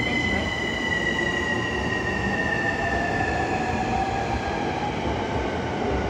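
E231/E233 commuter EMU pulling out, its Hitachi IGBT VVVF inverter and traction motors whining over wheel and rail rumble. Several high tones slowly fall in pitch while a lower tone rises.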